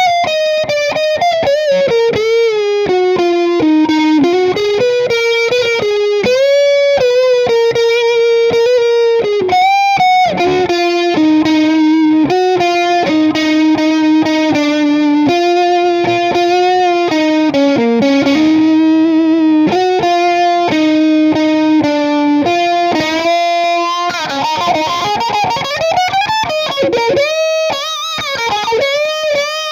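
Les Paul-style electric guitar with a Gotoh Tune-o-matic bridge, through a Marshall Silver Jubilee 2525H amp head, playing an overdriven single-note lead melody. It holds long notes with vibrato and bends the strings up and down, most plainly a little past the middle and near the end.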